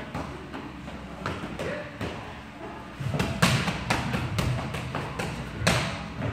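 Boxing gloves striking focus mitts in a pad-work drill: a string of sharp slapping hits at an uneven pace, sparse at first, then coming faster about three seconds in, with the loudest hit near the end.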